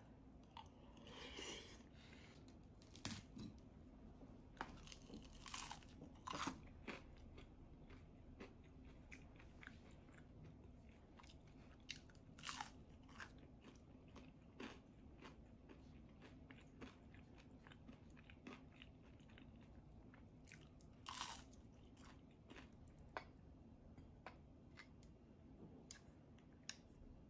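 Quiet close-up eating sounds: scattered crunchy bites and chewing of fried sweet potato fritters, with short clicks of wooden chopsticks against the earthenware pot and bowl.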